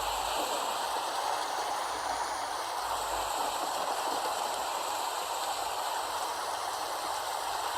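Steady rain falling: an even hiss with no pauses or single strong drops.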